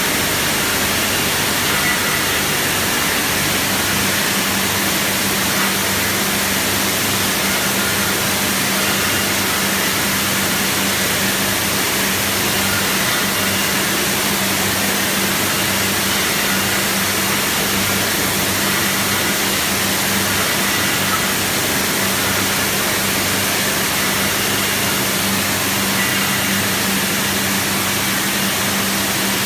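Bottling line machinery running: an even, steady machine noise with a constant low hum, from a bottle overturn sterilizer and its bottle conveyors.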